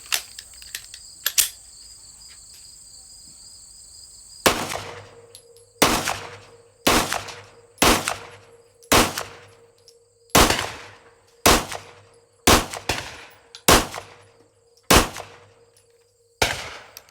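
Smith & Wesson M&P M2.0 9mm pistol firing a string of about ten shots at roughly one a second, starting about four seconds in, each crack trailing off in an echo. The first five are 124-grain +P 9mm NATO rounds and the rest 115-grain loads.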